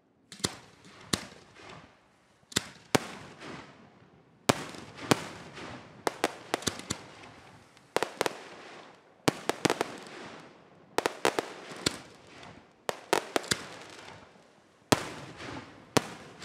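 Aerial firework shells bursting: a long run of sharp bangs, often two or three in quick succession, each trailing off in an echo.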